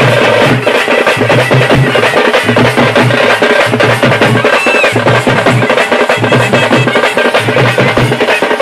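Hand-held frame drums beaten with sticks in a fast, loud, continuous rhythm, with a low thump recurring about once a second.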